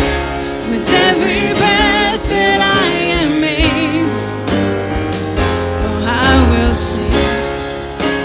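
A contemporary worship song performed live: a male lead voice with backing voices singing over a band of acoustic guitar, keyboard and drums.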